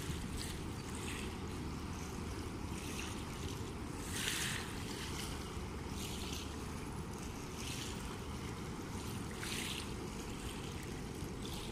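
Small river waves lapping and splashing against a gravel bank every second or two, over a steady low rumble.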